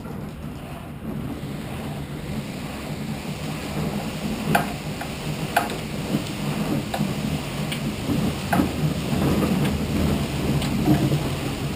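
KayakPro SUP ergometer being paddled: its flywheel spins with a steady whooshing rumble that grows louder as the strokes go on. Sharp clicks come roughly once a second.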